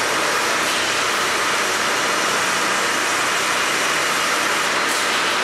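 Steady machinery noise: an even hiss with a faint low hum, and no distinct clanks or strokes.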